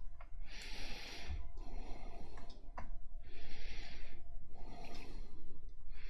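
A person breathing close to the microphone, slow breaths about every two and a half seconds, with a few sharp computer mouse clicks between them.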